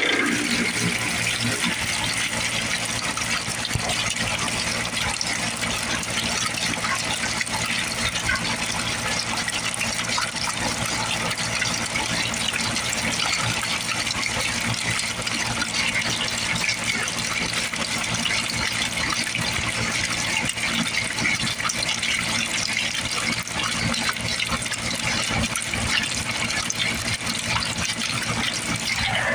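Steady, continuous rush and splash of running water, a sound effect built from other water recordings to stand in for water pouring down a storm drain.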